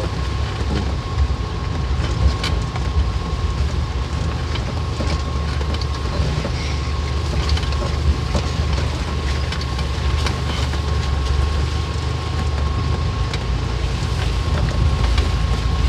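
Vehicle crawling along a rough dirt trail: a steady low engine and drivetrain rumble, a thin steady whine, and scattered knocks and rattles from the body as it jolts over ruts.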